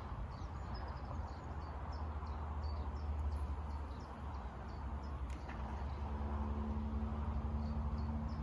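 Small birds chirping repeatedly over a steady low rumble. About five and a half seconds in, a steady low hum joins.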